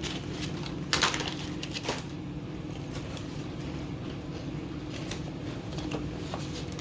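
Potato chips crunching and crackling as they are eaten, a few short crisp crackles, the loudest about one and two seconds in, over a steady low hum.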